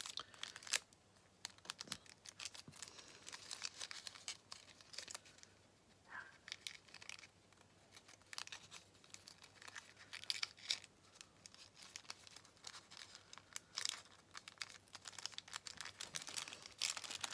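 Thin printed parchment paper crinkling as it is folded and creased by hand, in quiet, irregular crackles.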